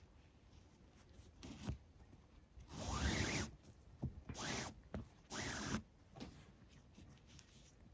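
Nylon paracord being drawn through a macramé weave: four sliding, rubbing pulls, the longest and loudest about three seconds in, then two shorter ones close together.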